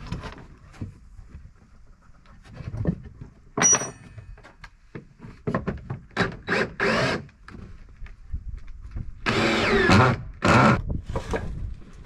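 Cordless drill driving screws into pine boards, run in several short bursts and then a longer run about nine seconds in, with scattered wooden knocks and a sharp click about four seconds in.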